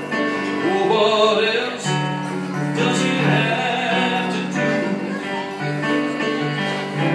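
Live acoustic music: an acoustic guitar and a Casio Privia digital piano playing held chords, with a man singing drawn-out notes over them in a Christian song.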